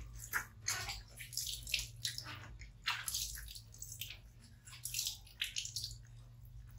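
Water splashing and trickling into a plastic basin as hands wash a baby monkey, in irregular splashes and drips.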